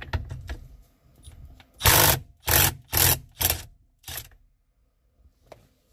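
Impact gun with a 22 mm socket hammering the steering wheel retaining nut loose in four short bursts about half a second apart, then a brief fifth. A few light clicks of the socket being seated come before.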